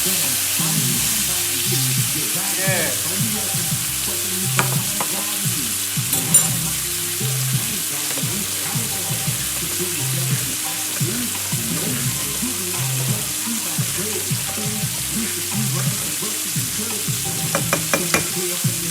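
Chicken breasts frying in a pan, a steady sizzle.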